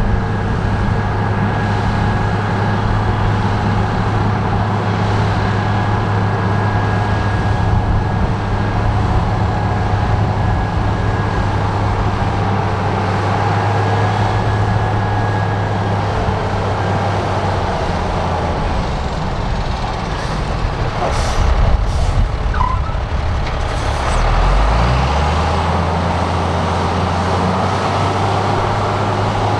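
Heavy diesel earthmoving machinery running with a steady deep engine drone. A few short sharp noises come about two-thirds of the way in, and soon after the engine note drops and settles lower.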